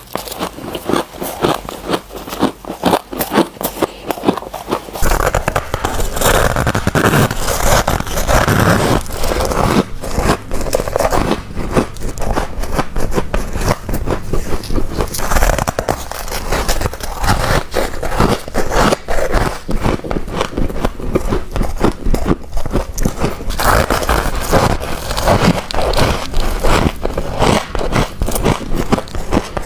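Close-up biting and chewing of freezer frost: dense, continuous crunching and crackling. A steady low rumble joins underneath from about five seconds in.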